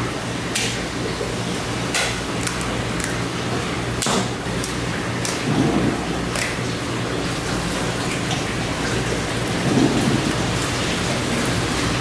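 Electric fish scaler working over a large fish: a steady, rain-like spattering with scattered sharp ticks and a low, steady hum underneath, heaviest about six and ten seconds in.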